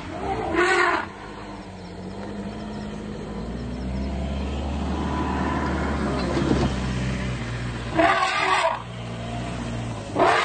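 Safari vehicle's engine running and building slightly, with three short, loud animal calls: one about a second in, one around eight seconds in and one at the very end.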